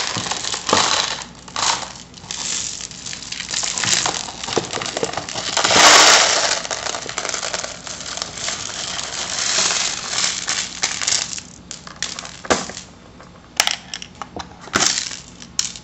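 Loads of small letter beads and pearl beads pouring and rattling out of a clear plastic compartment organizer box onto a wooden table, in uneven waves with the loudest rush about six seconds in. Near the end it thins to a few separate clicks of single beads dropping.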